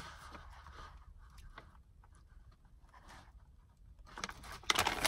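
Faint rustling and small clicks from a plastic takeout tray and a paper bag being handled in a car cabin, a little louder near the end.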